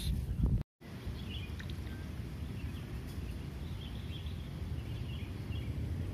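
Open-air background: a steady low rumble with faint, scattered bird chirps, after a brief dropout to silence under a second in.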